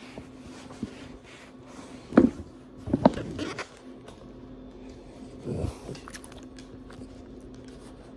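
French bulldog snorting close to the microphone: a few short, loud snorts about two and three seconds in, and a softer one past the middle.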